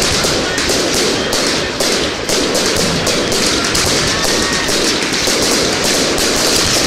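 Fireworks going off in a continuous dense barrage of bangs and crackles, several bursts every second with no pause.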